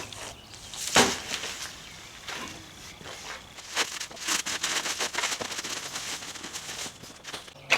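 Irregular scrapes and knocks from freshly poured concrete being hand-spread with tools, with a sharp knock about a second in and a dense run of clicks in the middle.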